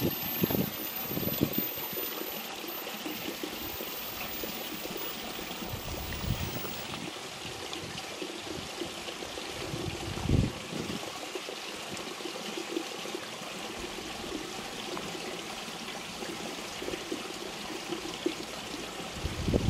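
A steady rush of flowing water, with a few short low thumps, the loudest about ten seconds in.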